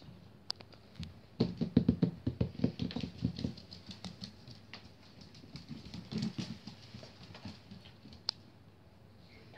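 Cairn terrier puppy paws and claws pattering and clicking on a vinyl tile floor: a quick, dense scramble starting about a second and a half in and lasting about two seconds, then scattered clicks and one sharp click near the end.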